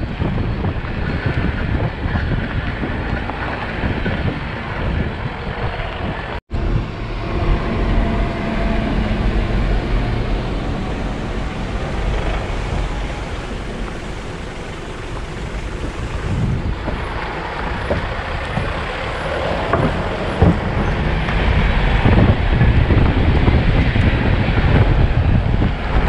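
Off-road vehicle driving on a rough track: steady engine and road rumble with scattered knocks. The sound cuts out for an instant about six and a half seconds in.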